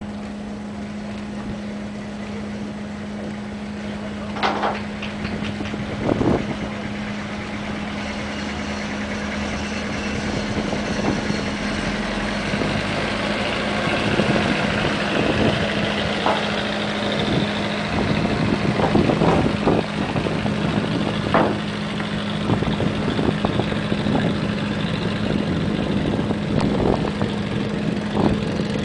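Boat engine running with a steady, unchanging low drone. A hiss of water and wind grows over it in the second half, and there are scattered short knocks.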